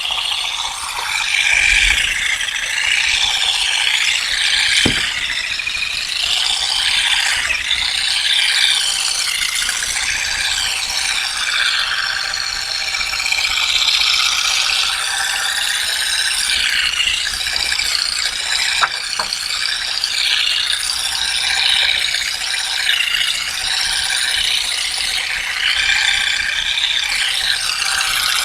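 Continuous fast mechanical clattering, ratchet-like, with a single sharp knock about five seconds in.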